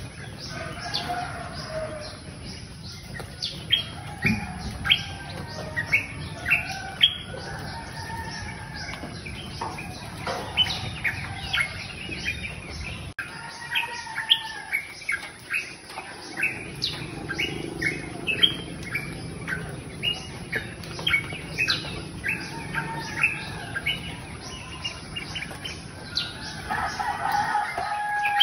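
Small birds chirping: many short, quick chirps repeated throughout.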